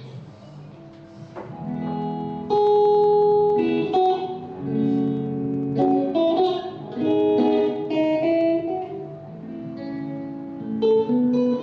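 Guitar played live, a run of picked notes and chords starting about a second and a half in.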